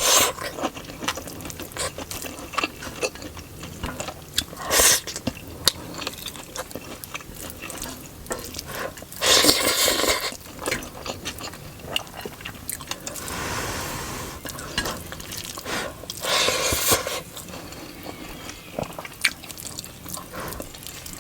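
Close-miked eating of chicken biryani with raita: wet chewing and mouth sounds made up of many small clicks, with a few louder, noisier spells every few seconds.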